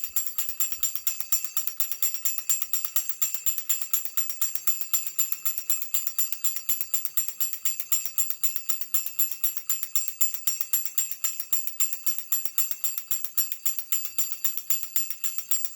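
Antique wind-up Pinocchio toy's clockwork spring mechanism running, a rapid, even metallic ticking with a faint high ringing, steady throughout.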